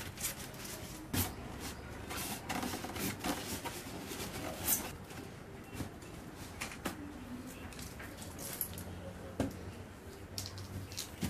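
Scattered clicks and knocks, several a few seconds apart, with faint voices at times.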